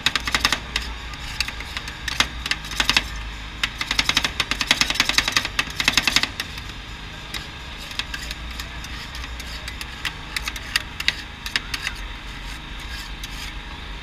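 Metal spatulas chopping and tapping on a steel rolled-ice-cream cold plate: a fast clatter of clicks for about six seconds, then slower, scattered taps.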